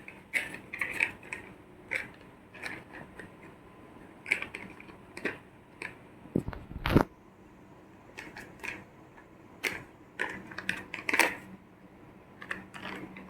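Plastic toy vehicles being handled, with irregular light clicks and taps and a louder double knock about halfway through.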